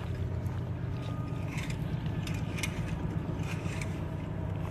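A steady low mechanical hum, like a running engine heard from inside a vehicle, with scattered light clicks and scrapes.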